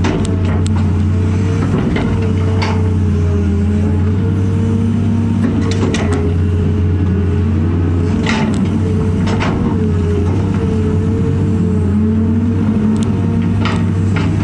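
Cat 330 excavator running steadily under working load, heard from inside the cab: a constant low engine hum with a higher whine that wavers as the boom and bucket move, and scattered clicks and knocks of dirt and the bucket.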